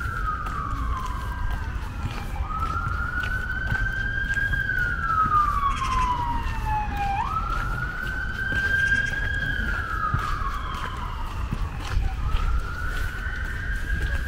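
Emergency-vehicle siren in a wail pattern: the pitch climbs quickly, then falls away slowly, in about three cycles, over a steady low rumble.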